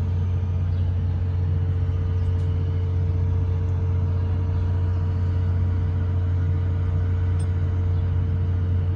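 Large diesel generator set running at a constant speed: a deep, steady drone with a thin, even hum above it.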